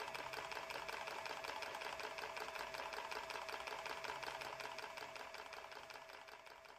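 Rapid, evenly spaced mechanical tapping with a steady ring, the small hammer of a wooden blacksmith automaton striking its miniature anvil. The tapping fades away over the last couple of seconds.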